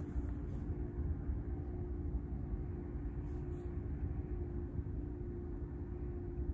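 A boat motor running steadily, a constant low rumble with an even hum.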